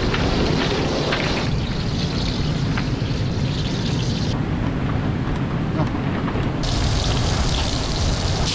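Hot oil sizzling in a wok over a wood fire as pieces of floured fish are dropped in to fry, under a steady low rumble of wind on the microphone and surf.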